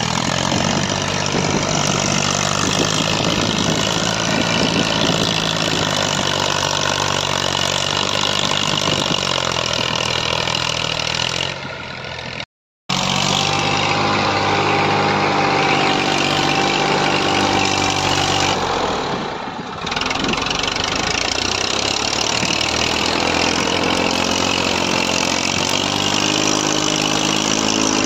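Massey Ferguson 1035 DI tractor's three-cylinder diesel engine running steadily while working loose soil, its pitch rising and falling slightly. The sound cuts out for a moment about halfway through.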